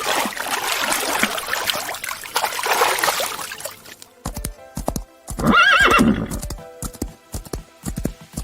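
A horse neighing: a rough, breathy stretch for about four seconds, then a shrill, wavering whinny about five and a half seconds in. Background music with a steady beat runs underneath.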